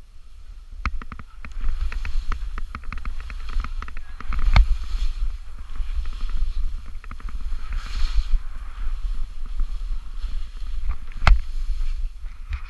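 Wind buffeting an action camera's microphone with a heavy, uneven rumble, over scattered clicks and knocks, two of them sharper, about a third of the way in and near the end.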